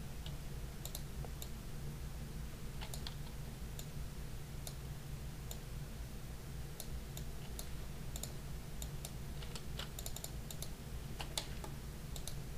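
Irregular clicks of a computer mouse and keyboard, sometimes several in quick succession, over a steady low hum.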